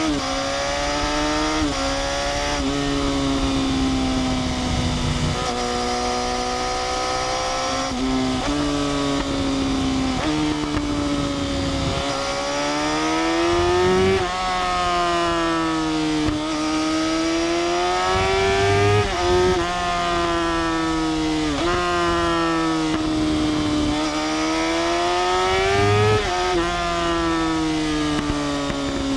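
Yamaha R6's inline-four engine on the move, its pitch repeatedly climbing and falling, with sudden jumps at about ten gear changes.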